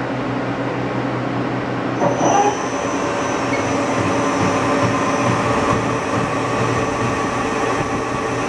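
Dainichi BX-45 CNC lathe running with a steady mechanical hum made of several constant tones. About two seconds in there is a brief louder sound, after which a high steady whine joins the hum.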